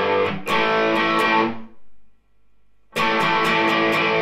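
Electric guitar strumming overdriven chords through an amplifier. The chords stop about one and a half seconds in and start again about three seconds in. The part after the pause comes through a Laney VC30 valve amp and sounds crisp and a bit brighter.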